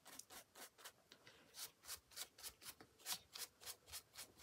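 Faint paintbrush strokes scrubbing paint across a paper journal page, quick and rhythmic at about four a second, with a short pause about a second in.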